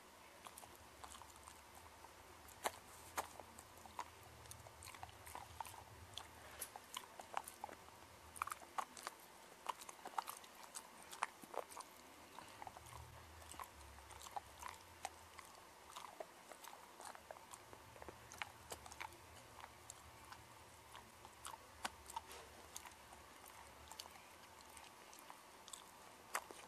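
Siberian Husky chewing a Milk-Bone Brushing Chews dental treat, with faint, irregular crunches and clicks of its teeth on the hard chew.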